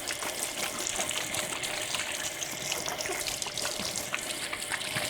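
Kitchen tap running into a sink, a steady stream of water splashing.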